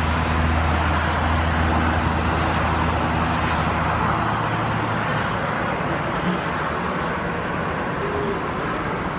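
Road traffic: a steady hiss of passing cars, with a vehicle's low engine hum that fades out about four seconds in.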